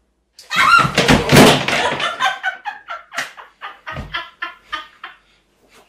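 A woman laughing: a loud outburst, then quick bursts of laughter about four a second that trail off, with a dull thump about four seconds in.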